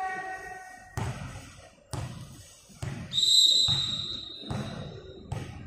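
A volleyball bounced repeatedly on a hard court floor, six thuds at an even pace of roughly one a second. A little after three seconds in, a referee's whistle gives one high, steady blast.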